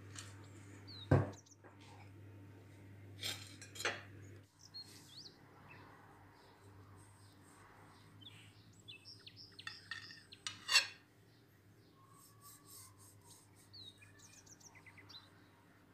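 A large kitchen knife cutting through a baked nut-crusted cake on a ceramic plate: crisp crackling as the blade goes through the crust, with a sharp click of blade on plate, after a few knocks of the plate being handled about a second and three to four seconds in. Birds chirp faintly in the background.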